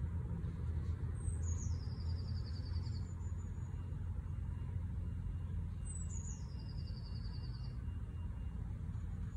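A songbird sings twice, each phrase a high trill about two seconds long that steps down in pitch, over a steady low rumble.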